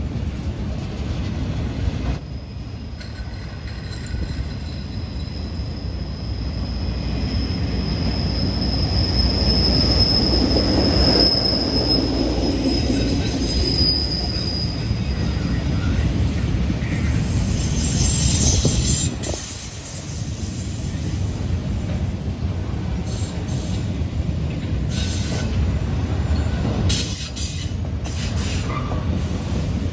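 Freight train of autorack cars rolling past on a curve: steel wheels on rail give a continuous low rumble, with a high, steady wheel squeal from about two seconds in that fades out about halfway through. A few short knocks come near the end.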